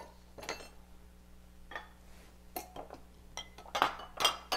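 Stainless steel mixing bowls and dishes clinking and knocking as they are handled, in scattered short strikes, some ringing briefly. A cluster of louder clinks comes near the end.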